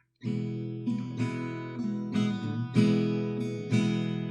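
Acoustic guitar strumming chords, struck roughly once a second, as the instrumental introduction to a hymn to the Holy Spirit.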